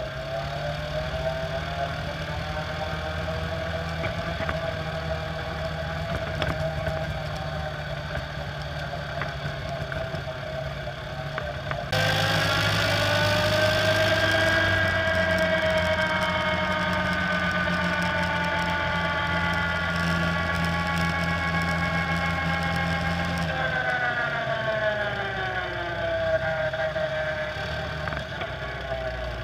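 Quad bike (ATV) engine running while riding, heard from on board, its pitch rising and falling with the throttle. The sound changes abruptly about twelve seconds in and again near the end.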